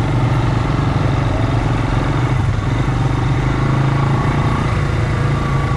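ATV engine running steadily while riding, with a constant low drone and the noise of travel.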